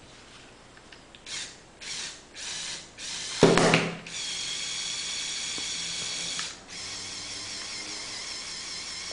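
Lego Technic crane mechanism working: four short bursts of mechanism noise, then a TV remote control drops from the claw onto the table with a loud clatter about three and a half seconds in. A small electric motor then runs with a steady whine, dropping to a quieter steady run near the end.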